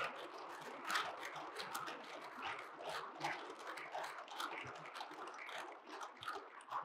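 Audience applauding: a dense, steady patter of many hands clapping, thinning out near the end.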